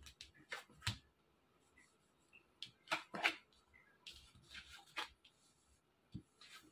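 Tarot cards being dealt from a deck and laid down on a cloth-covered table: a series of soft swishes and light taps as cards slide off the deck and onto the spread.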